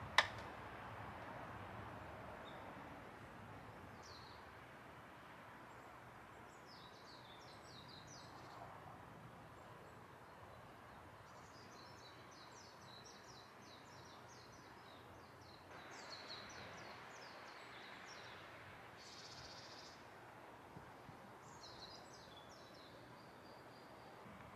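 Small songbirds singing repeated short, rapid trilled phrases every few seconds over a faint steady outdoor hiss. One sharp click just at the start is the loudest sound.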